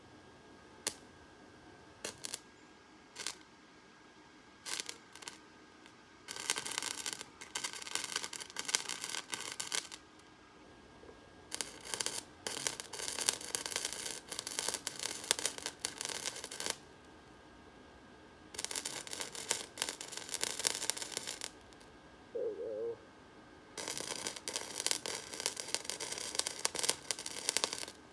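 Electric welding arc crackling in four bursts of a few seconds each, with a few single clicks before the first burst, as the bandsaw-blade stack is welded together.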